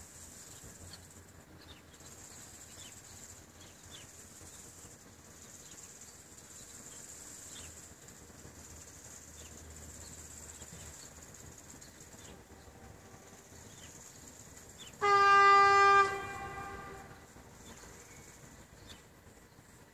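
Electric locomotive horn: one loud blast of about a second on a single steady note, tailing off briefly as it echoes.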